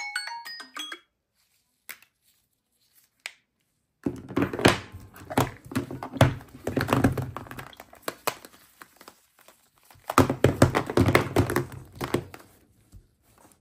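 A smartphone alarm melody ends in the first second. From about four seconds in, Samsung phones are handled on a wooden tabletop in two bouts: repeated knocks, taps and sliding as they are picked up, set down and turned over.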